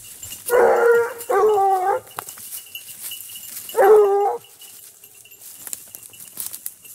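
Grand Basset Bleu hound baying: three drawn-out calls, two back to back about half a second in and a third near four seconds.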